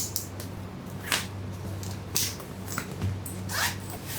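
Packaging being handled during an unboxing: a few short rustles and scrapes of paper and plastic, over a low steady hum and faint background music.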